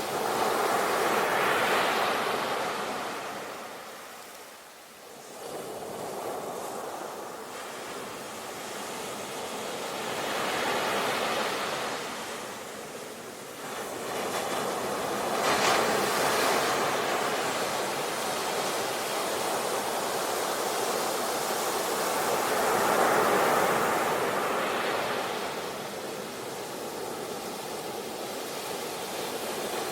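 Ocean surf: waves washing in one after another, each a slow swell of rushing noise that rises and falls over several seconds, with a brief lull about four to five seconds in.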